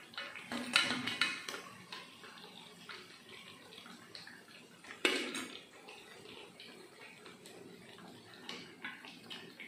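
Steel ladle clinking against a steel plate and the frying pan as fried bajji are lifted out of the oil, over the steady sizzle of frying oil. A cluster of clinks about a second in, one louder clink about five seconds in, and a few lighter ones near the end.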